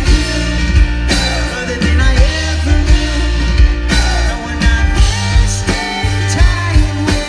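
Live rock band played loud through a concert PA: a male lead voice singing over a steady beat, heavy bass and electric guitar.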